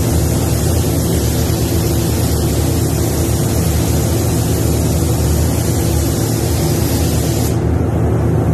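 Paint spray gun hissing as it lays clear coat, over the steady low hum of the paint booth's fans. The hiss cuts off about seven and a half seconds in, when the trigger is released.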